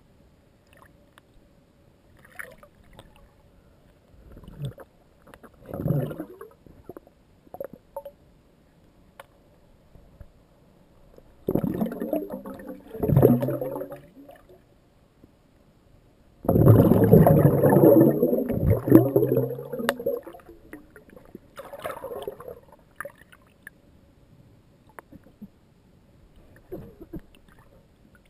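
Underwater sound in a swimming pool, heard through a GoPro's waterproof housing: muffled bursts of bubbling and churning water, the longest and loudest lasting about four seconds a little past the middle, over a faint steady hum.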